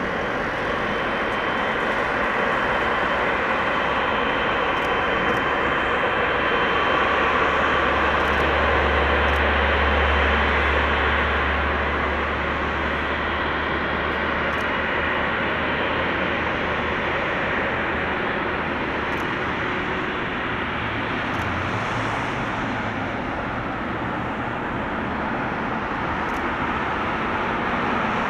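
Boeing 777F freighter's twin GE90 turbofans running at taxi power as it rolls past: a steady jet rumble and hiss that swells to its loudest, with a deep low hum, about ten seconds in, then eases slightly.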